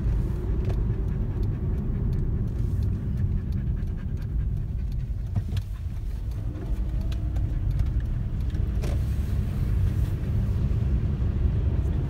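Car road noise heard from inside the cabin: a steady low rumble of the engine and tyres on a wet road, with a few faint clicks.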